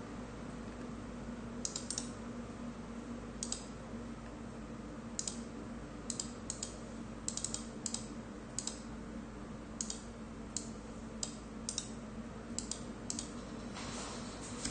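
Computer keyboard being typed on in scattered keystrokes, single clicks and quick pairs at irregular intervals, over a steady low hum. A rustling noise starts near the end.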